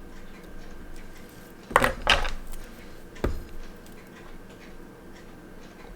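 Small metal watchmaking tools and parts clinking on a hard work surface: a short rattle of clicks a little under two seconds in, then one sharp click about a second later.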